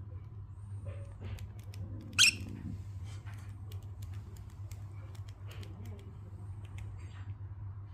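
A parrot eating melon: scattered small clicks and patter of its beak working the fruit, over a steady low hum. About two seconds in comes one short, sharp, much louder sound.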